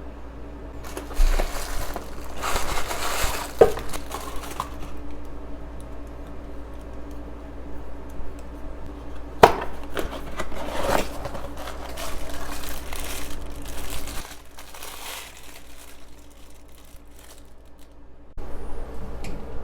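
Hands handling the upgrade parts and their packaging: plastic crinkling and rustling in spells, with two sharp clicks of hard parts knocking together, about three and a half seconds in and again about nine and a half seconds in.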